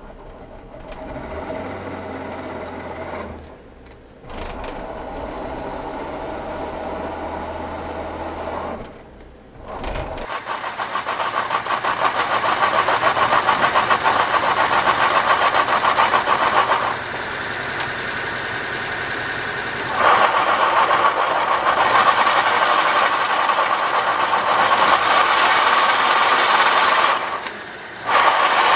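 Mitsubishi Pajero Mini (H58) with a manual gearbox running. A quieter low hum for about ten seconds is broken by two short dips. A much louder, denser engine and drivetrain noise then takes over, eases off and comes back once, and drops out briefly near the end.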